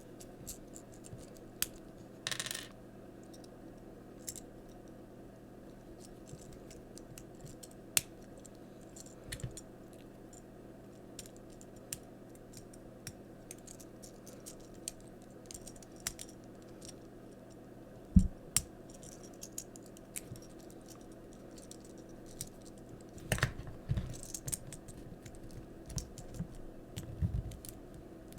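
Small plastic action-figure parts clicking, snapping and tapping as a Transformers figure is handled and transformed, with scattered light clicks and a few louder knocks later on, over a faint steady hum.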